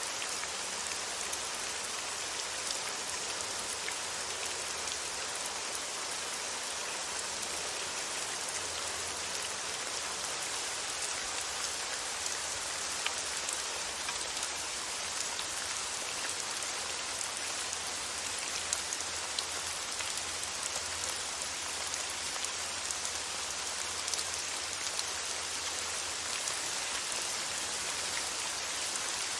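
Steady rain falling, an even hiss with scattered individual drop ticks, and a faint low rumble underneath.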